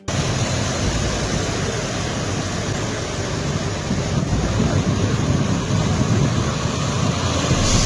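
Heavy trucks' diesel engines running steadily as a line of lorries drives slowly through shallow floodwater covering the road.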